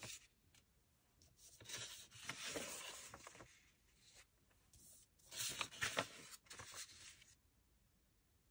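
Loose sheets of paper rustling as a stack of handwritten notes is leafed through by hand, in two spells with a quiet pause between.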